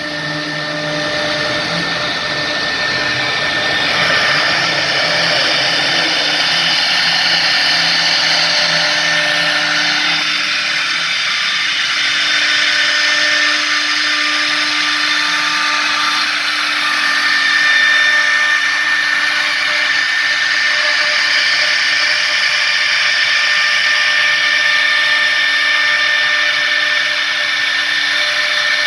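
CNC router carving a 3D relief, its spindle running steadily with several held tones over the hiss of the bit cutting.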